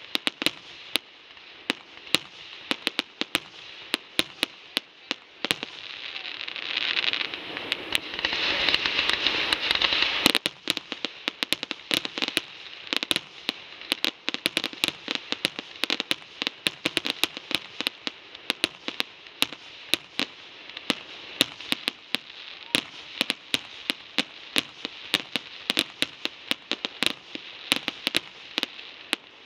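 Aerial fireworks display: a steady run of sharp pops and crackles from bursting shells, swelling into a thick hissing crackle from about six seconds in that cuts off suddenly around ten seconds, then carries on as scattered pops.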